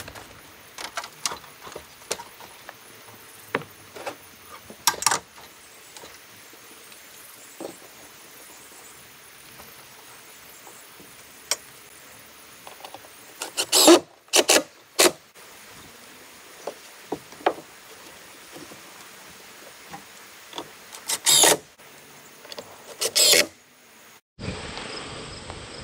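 Rough-cut siding boards being fastened: several short, loud bursts from a power fastening tool, about half-way through and again near the end, with scattered lighter knocks and clicks of boards being handled between them. Near the end a steady outdoor hiss sets in suddenly.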